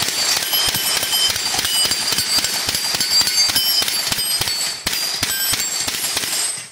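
Rapid gunfire, several shots a second, with steel plate targets ringing as they are hit. It cuts off abruptly near the end.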